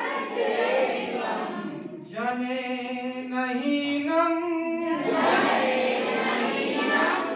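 Students chanting Sanskrit verses together in a slow, sing-song recitation. From about two to five seconds in, the chant holds long notes that step up and down.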